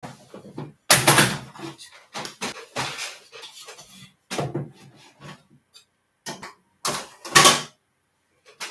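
Objects being handled and moved around on a desk: irregular bumps, knocks and rustles, the loudest about a second in and again about seven seconds in.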